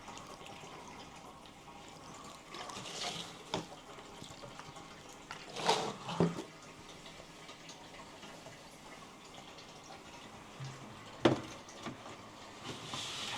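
Water being poured in two short spells, one a few seconds in and one near the end, with a few sharp knocks in between.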